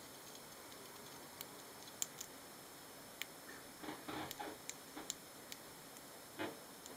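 Roborovski dwarf hamsters moving about their sand-bedded cage: faint, scattered sharp clicks, with short scrabbling bursts about four seconds in and again near the end.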